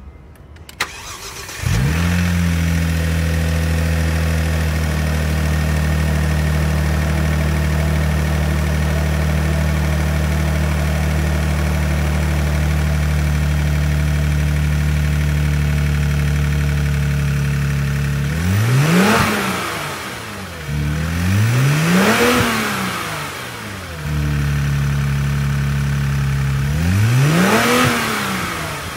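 Kia Stinger engine starting after a brief click, catching about two seconds in and idling steadily, then revved three times near the end, each rev rising and falling in pitch.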